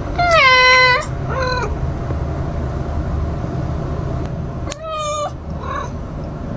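A cat meowing: a long, loud meow that falls in pitch, a shorter one right after it, then another meow about five seconds in, over a steady low hum.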